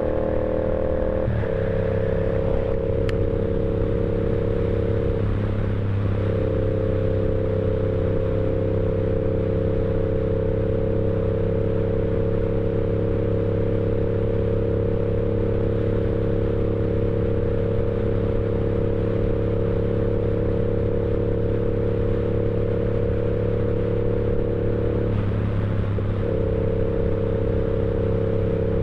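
Yamaha R7's 689 cc parallel-twin engine under way. Its note rises and settles about a second in, then holds at a steady engine speed while cruising.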